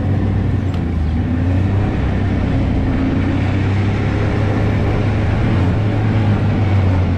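Snowmobile engine running at a steady speed while riding over packed snow: an even low drone with a constant rushing noise over it.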